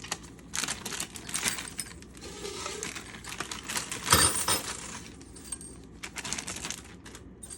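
Small metal hardware, screws and a screwdriver for fitting a pan handle, clinking and rattling as it is handled, with one louder ringing metal clink about four seconds in.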